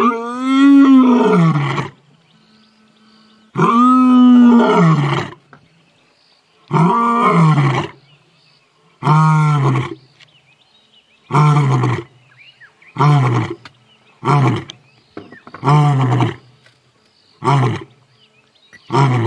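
Male lion roaring, a full roaring bout of about ten calls, each falling in pitch. Two long moaning roars open it, followed by a run of shorter, deeper grunts that come closer together.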